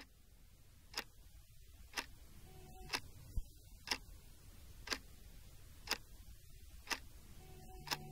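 A clock ticking steadily, one sharp tick every second. A low steady drone fades in underneath and swells near the end, with a single soft low thump about three and a half seconds in.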